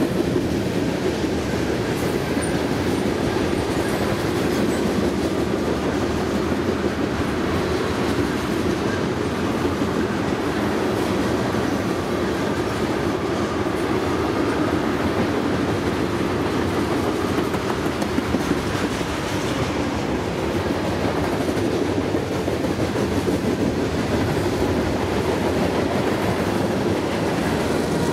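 Freight train tank cars rolling past at speed: a steady rumble and rattle of steel wheels on rail, with irregular clicking over the rail joints.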